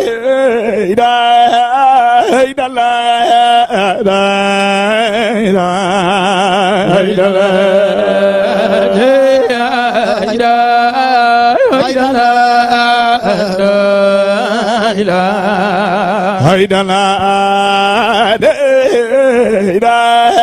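A man chanting Islamic zikr (dhikr) into a microphone in long, drawn-out melismatic phrases with strong vibrato, over a steady low sustained note.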